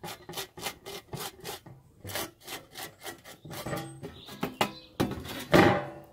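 Thumb rubbing dried salt crystals off a freshly spray-painted metal sheet, a quick run of short scraping strokes at about four to five a second, with a louder, longer scrape near the end. Rubbing the salt away lifts flakes of paint, leaving the peeled, distressed patches.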